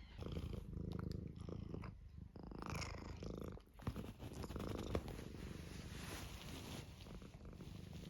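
Domestic cat purring close to the microphone, a steady low pulsing rumble, with brief rustles mixed in.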